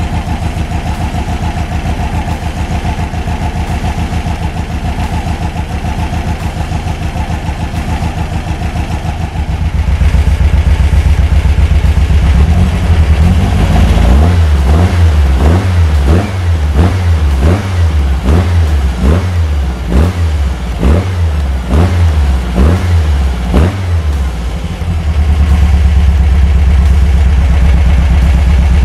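Air-cooled VW Beetle 1303S flat-four engine idling steadily, then running faster and louder. From about halfway it is revved by hand at the throttle in a dozen or so quick blips, a little over one a second, then held at a steady higher speed near the end.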